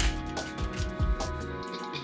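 Background jazz music with a steady beat of low drum and bass hits; the low end drops out about a second and a half in.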